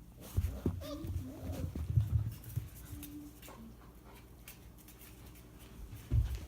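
Five-week-old English Shepherd puppies making small whines amid scuffling and bumps for the first couple of seconds, with more low thumps near the end.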